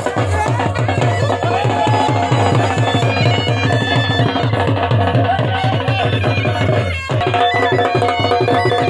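Dhol drum beating a fast, steady rhythm under a reed wind instrument (baja) playing a traditional folk tune, with a brief break about seven seconds in.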